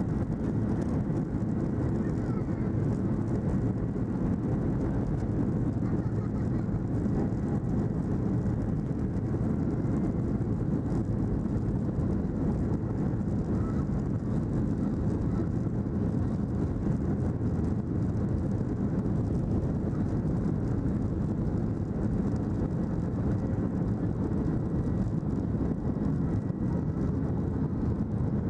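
Boeing 737-800's CFM56-7B turbofan engines at takeoff thrust during the takeoff roll, heard inside the cabin over the wing: a steady, loud, deep engine noise.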